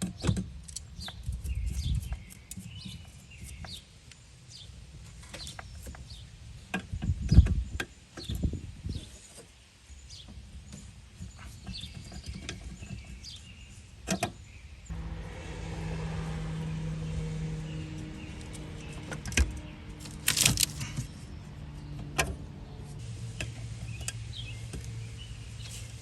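Hand tools clicking and clanking on the rusted brake line fittings of a master cylinder as the lines are worked loose, with one heavier knock about seven seconds in. About halfway through, a steady low mechanical hum starts and keeps going.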